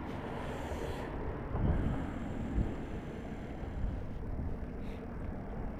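Wind buffeting the microphone: a steady low rumble under a hiss.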